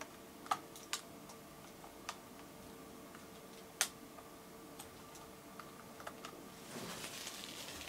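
Quiet room tone with a faint steady hum and scattered small, sharp clicks at irregular moments, and a brief soft rustle near the end.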